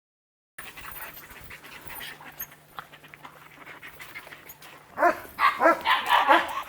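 A dog panting rapidly in a run of quick, loud breaths, starting about five seconds in, after a faint steady hum.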